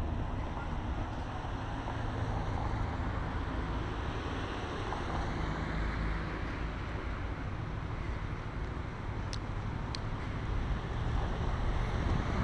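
Road traffic passing on a wide city street, a steady noise of cars and tyres with low wind rumble on the microphone. Two brief high chirps come about a second apart, late on.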